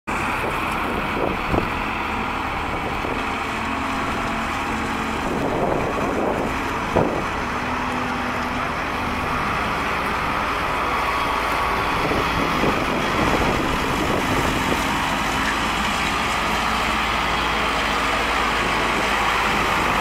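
Case 580L Turbo backhoe's turbocharged diesel engine running steadily as the machine drives around, with two sharp clanks, one near the start and one about seven seconds in.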